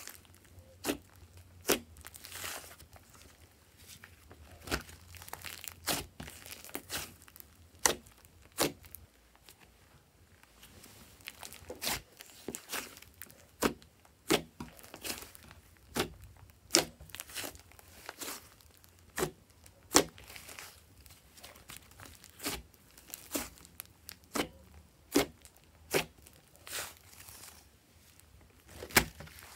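Thick glossy cream slime, mixed with makeup and clay, being squeezed and kneaded by hand, giving sharp, irregular popping clicks as air pockets are pressed out, with soft squishing between them.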